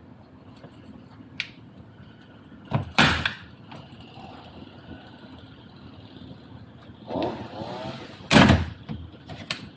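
Parts being handled during a shifter box swap. There is a click about a second in and two louder scraping or knocking bursts, one about three seconds in and one near the end, over a steady low hum.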